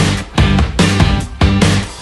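Background music with a strong, regular beat.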